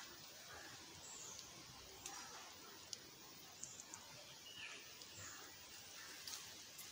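Near silence: faint outdoor background with a couple of brief, faint high chirps and a few light ticks.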